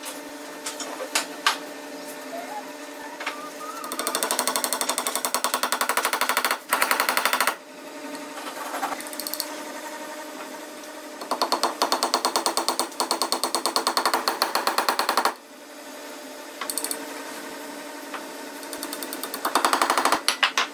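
A small steel hammer tapping wooden dowel pins into slots in a board, in three long runs of very rapid, even taps, with a few single sharp clicks about a second in.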